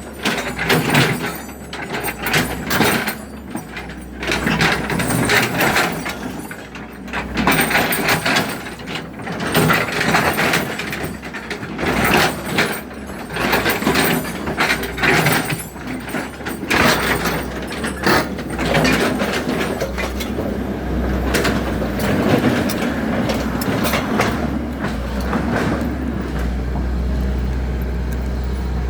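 Excavator at work: its engine runs steadily under many irregular knocks, clanks and scrapes. The engine hum grows stronger and steadier in the last part.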